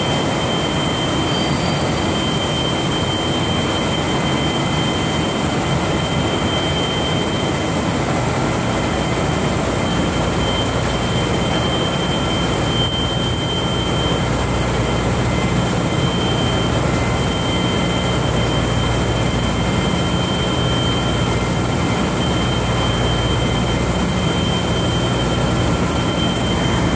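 Skoda W 200 HB CNC floor borer milling a metal block: a steady, loud, dense machining noise from the cutter in the cut and the coolant spray, with a constant high whine and a low hum underneath.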